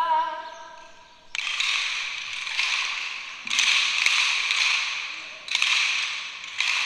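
A group of children playing kālaʻau (hula sticks) in unison: four sharp-starting, rasping stick sounds, each lasting about a second, one every second or two. They follow the end of a chanted note that fades out in the first second.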